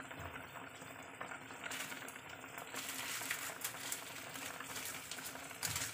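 Pork braising in soy-sauce liquid, bubbling at a hard boil in a stainless steel pot with a crackling fizz. The crackle grows louder a couple of seconds in.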